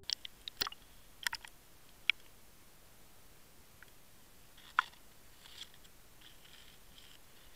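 Scattered sharp clicks and ticks, with faint rustling and hiss, picked up by an underwater camera's housing as it is pulled through shallow water among reed stems ahead of a fishing lure. The clicks come in a cluster over the first two seconds, with another strong one about five seconds in.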